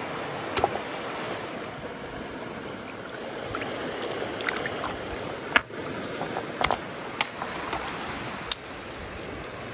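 Fast-flowing stream rushing steadily, with a few sharp snaps and knocks over it, the loudest about halfway through.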